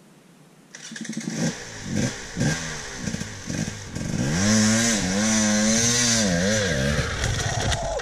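Two-stroke KTM 300 enduro bike revving hard on a steep climb: short throttle blips at first, then held at high revs with the pitch wavering. The engine note drops away about seven seconds in as the bike loops out backwards.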